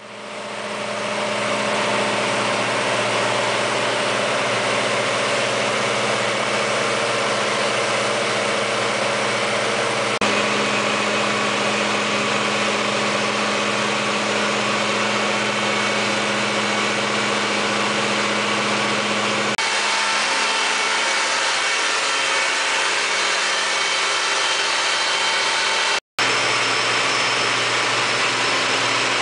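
Large turbocharged Mitsubishi S12R diesel engine of a 1250 kW Katolight generator set running steadily. Its tone shifts abruptly twice, and it drops out for a split second near the end.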